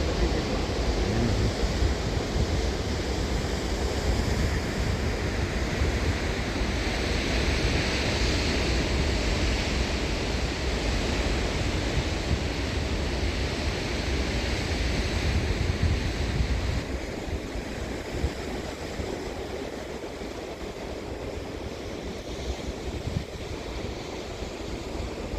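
Ocean surf washing and breaking on a beach, a steady rushing noise that swells and ebbs. Wind buffets the microphone with a low rumble that drops away about two-thirds of the way through.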